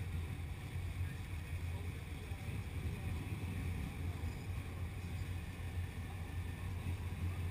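Low, steady rumble of classic American cars' engines idling as they roll slowly past at walking pace.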